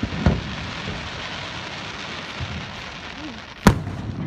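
Aerial fireworks bursting: a boom just after the start, a steady hiss in between, and a sharp, loud bang near the end.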